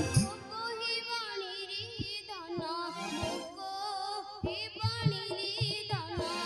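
A woman singing a wavering, ornamented devotional melody into a stage microphone, with a few light drum strokes under the voice.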